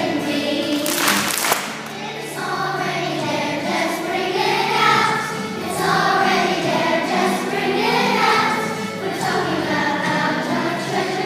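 A choir of young children singing a song together with instrumental accompaniment, with a short burst of noise about a second in.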